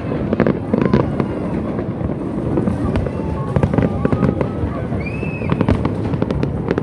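Aerial fireworks display: many sharp bangs and crackling pops in quick, irregular succession over a low rumble.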